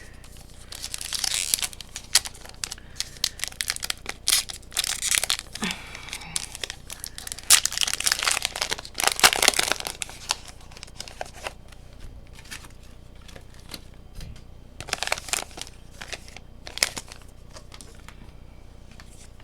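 Foil wrapper of a Pokémon card booster pack crinkling and tearing as it is opened by hand. The irregular crackling is busiest in the first half and thins out to occasional rustles later.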